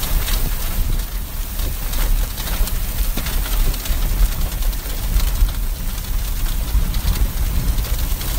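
Heavy storm rain pelting a car, a dense hiss with many sharp hits on the body and glass, over a steady low rumble.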